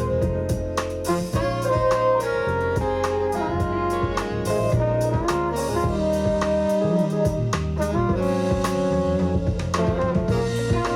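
Jazz recording played back over a hi-fi system: a saxophone holds and moves through melodic notes over a busy drum kit with frequent cymbal and drum hits.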